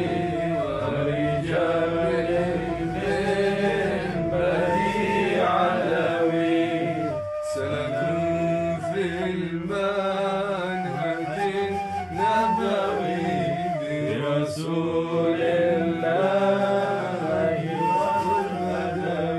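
Male voices chanting an Arabic devotional poem (qasida) in a flowing melody over a low held drone, with a brief pause about seven seconds in.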